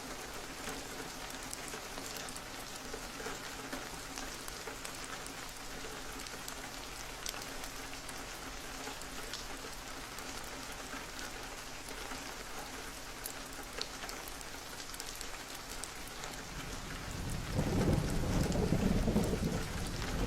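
Steady rain with scattered individual drops ticking. About seventeen seconds in, a low rumble of thunder rises and becomes the loudest sound.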